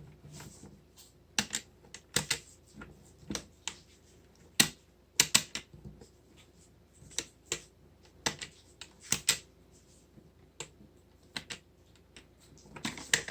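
Irregular clicks and taps of hands working at a small plastic toy and its packaging, a few sharp clicks a second in places with short pauses between, while something is forced into place.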